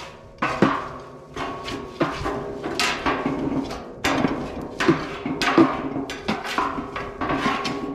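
A pitchfork jabbing and scraping inside a 55-gallon steel burn barrel, about two sharp metal knocks a second, the drum ringing after each. The burning trash is being stirred to get the fire going again.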